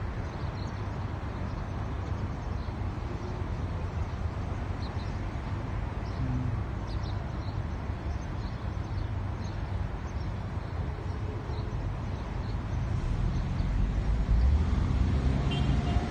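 Steady low rumble of a car driving on city roads, engine and tyre noise heard from inside the cabin, growing louder over the last few seconds.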